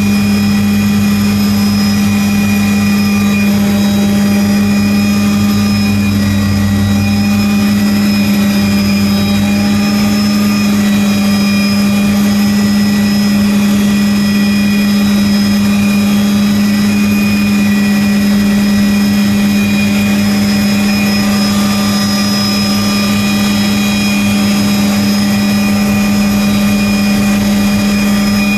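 Helicopter engine and rotor heard from inside the cabin during lift-off and climb-out: a loud steady drone with a strong low hum and thin high whines. A deeper throb beneath it fades out about seven seconds in.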